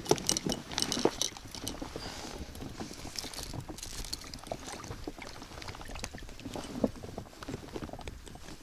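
Water lapping and splashing against an inflatable boat, with scattered small clicks, knocks and rustles from fishing tackle being handled.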